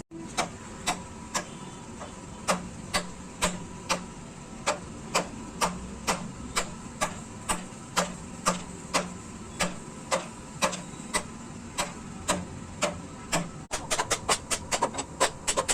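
Repeated hammer strikes at an even pace of about two a second, speeding up to about four a second after a short break near the end: hammering during construction of a pig shed.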